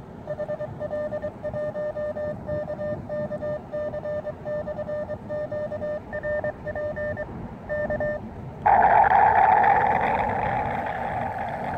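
Morse code sidetone from an Elecraft KX2 transceiver: a single steady beep near 600 Hz keyed on and off in dots and dashes for about eight seconds. Shortly after it stops, a loud hiss comes in suddenly and then slowly fades.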